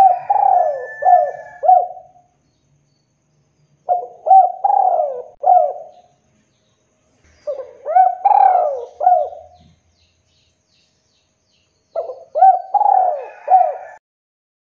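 Spotted dove cooing: four phrases of several short, bending coo notes each, repeated every few seconds with pauses between.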